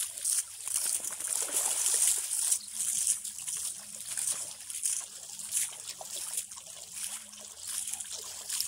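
Shallow water being splashed by hand, scooped and thrown over a wet dog. It comes as a run of splashes, heaviest in the first few seconds, with water trickling and sloshing between them.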